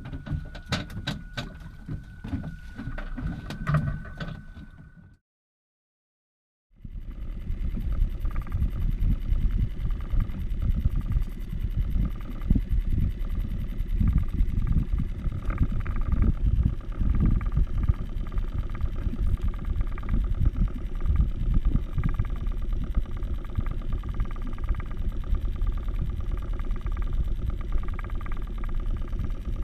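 Sharp clicks and handling noises over a thin steady tone for about five seconds, then a sudden cut to silence. After it comes a steady low rumble of a boat at sea.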